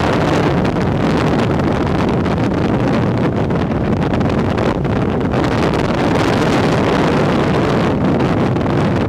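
Gale-force mountain wind buffeting the microphone: a loud, steady, low rumbling roar.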